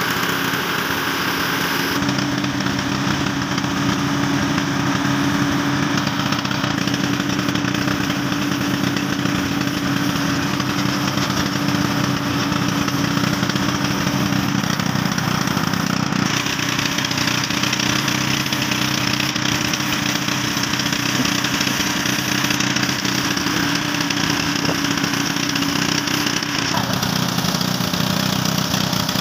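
Air spray gun hissing steadily while spraying paint, over the steady drone of an engine running.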